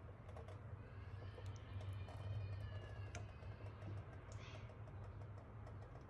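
Faint, irregular clicks and small wet pops as a silicone spatula stirs thick creamy chicken pie filling in a pan, over a steady low hum.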